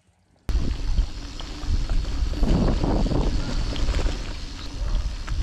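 Wind buffeting the microphone of a camera riding on a moving bicycle, with tyre rumble and rattles from a forest dirt track; it starts abruptly about half a second in.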